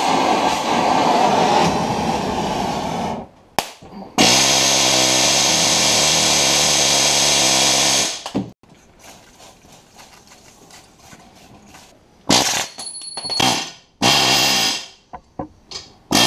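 Gas torch flame hissing against the steel roller end, shut off about three seconds in. Then a pneumatic air hammer runs steadily for about four seconds, driving the seized bearing off the baler roller, followed by a few short bursts of the air hammer near the end.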